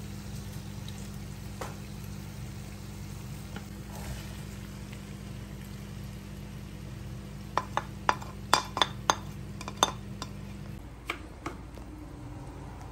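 Oil frying in a nonstick pan as chicken pieces are lifted out with a slotted spoon and diced onion goes in, over a steady low hum that stops near the end. A quick run of about eight sharp metal clinks comes about two-thirds of the way through.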